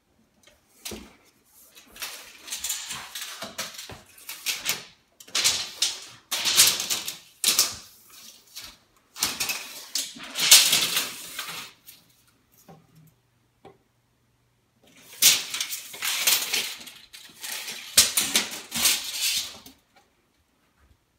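Retractable metal tape measure being pulled out, slid along walls and a countertop and reeled back in. It makes bursts of clicking and scraping with short pauses between.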